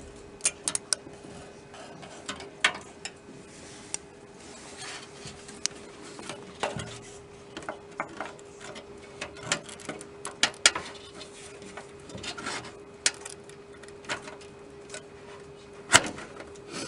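A PCI network card being handled and worked into a slot in a computer case: scattered sharp clicks, taps and light scrapes of the card and its metal bracket against the case, with a louder click near the end. A faint steady hum runs underneath.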